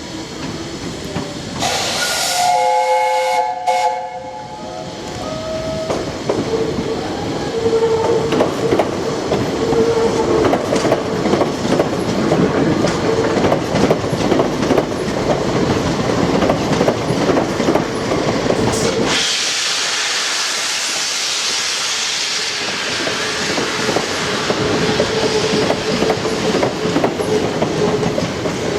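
Steam locomotive whistle sounds briefly about two seconds in, then the three-cylinder LNER A1 Pacific Tornado gets its train under way, with continuous noise of the locomotive and coaches on the move. From about two-thirds through, a strong steam hiss takes over as the deeper rumble falls away.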